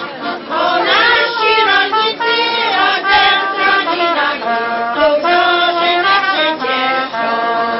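A women's folk choir singing a song together in held notes, accompanied by a trumpet.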